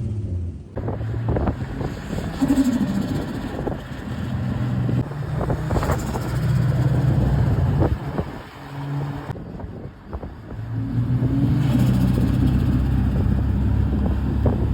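Ford FG XR6 Turbo's turbocharged 4.0-litre Barra inline-six being driven hard. It climbs in pitch about two seconds in and again near the end, and eases off in the middle with sharp fluttering chatter from the turbo between pulls.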